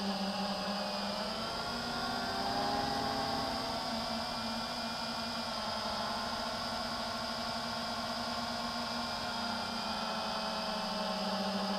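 FPV quadcopter's electric motors and propellers whining steadily, heard from the drone's onboard camera: several tones at once, their pitch bending up and down slightly as the throttle changes, about two and ten seconds in.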